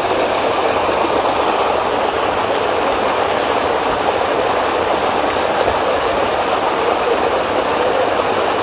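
Steady rushing of water flowing down an open water-slide flume.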